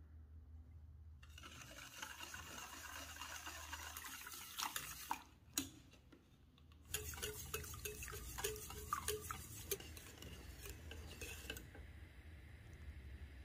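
Wire balloon whisk beating flour into orange juice in a stainless steel saucepan: the wires scrape and click against the metal pan in quick strokes, about two to three a second, with a short pause about five seconds in.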